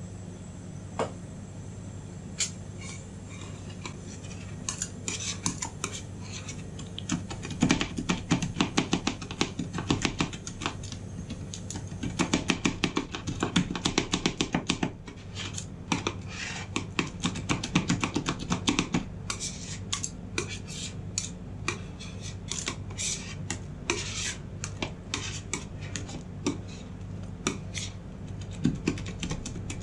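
Two metal spatulas chopping and tapping on a chilled stainless-steel ice cream roll plate, cutting chocolate pieces into liquid ice cream base. Scattered clicks at first become rapid, continuous clattering from several seconds in, with scraping as the mix is spread. A steady low hum runs underneath.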